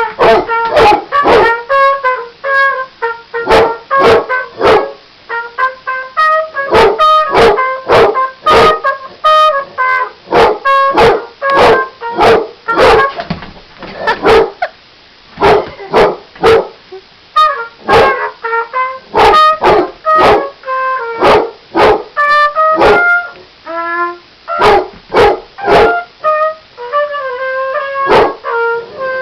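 A basset hound barking over and over at a trumpet being played, its barks coming one or two a second with only short pauses. Between and under the barks the trumpet holds a string of notes that change pitch.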